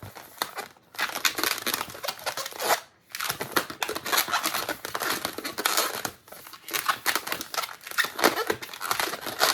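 Latex modelling balloon being twisted and handled, with rapid squeaky, scratchy rubbing of rubber on rubber and on the hands, broken by short pauses.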